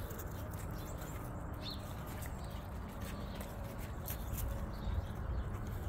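Outdoor farmyard ambience: a steady low rumble with scattered light scuffs and clicks as Great Pyrenees dogs move about on frozen, muddy ground, and a short high bird chirp about a second and a half in.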